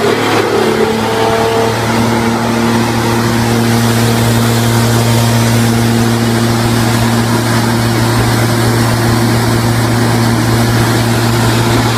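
Blade-type wood sawdust crusher running steadily under load: a loud, even low hum with a broad rushing noise as sawdust blows out of the discharge.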